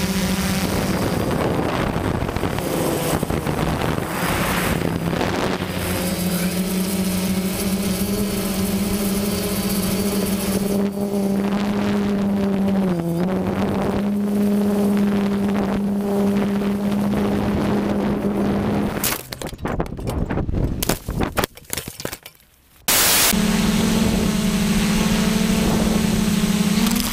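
Small quadcopter drone's propellers whining at a steady pitch, dipping briefly once. The whine cuts off about two-thirds of the way through into scattered knocks and clatter, then a steady whine starts again about four seconds later.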